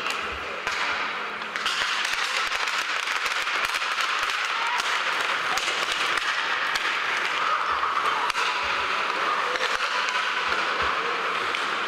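Youth hockey players' sticks clattering and skates scraping on the ice of an indoor rink: a dense crackle of clicks that thickens about two seconds in and carries on steadily.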